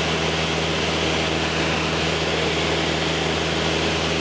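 Steady drone of a light high-wing airplane's engine and propeller in level flight, heard inside the cabin, with an even hiss of air over it.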